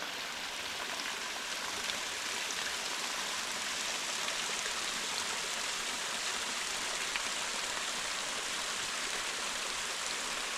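Steady rush of water from a small rocky stream running over cascades.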